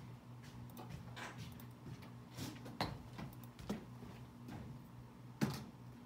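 Room tone: a steady low hum with a few scattered soft clicks and knocks. The loudest knock comes about five and a half seconds in.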